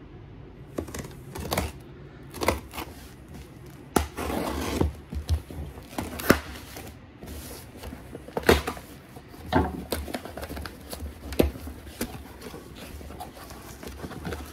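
Folding pocket knife slicing the packing tape on a cardboard box: irregular scrapes, sharp clicks and taps, with a longer stretch of cutting or tearing about four seconds in. Near the end come the rustle and flex of the cardboard flaps being pulled open.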